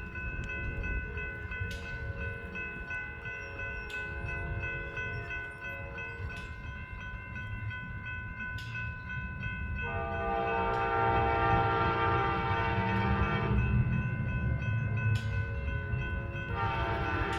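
Passenger train's multi-chime air horn sounding: a faint blast a few seconds in, a long loud blast about ten seconds in, and another starting near the end, over the steady rumble of the approaching locomotive.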